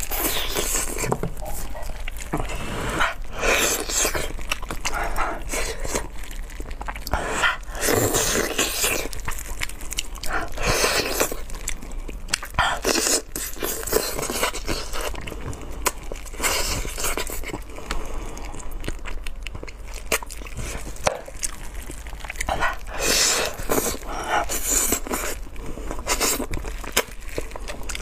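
Close-miked eating sounds: biting and chewing braised pig's trotters, with wet, sticky mouth clicks and smacks coming irregularly throughout.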